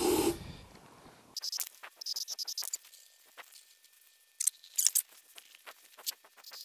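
Aerosol brake cleaner sprayed in short hissing bursts into a motorcycle final drive, with liquid pattering and spattering into an oil drain pan as a rapid run of small ticks.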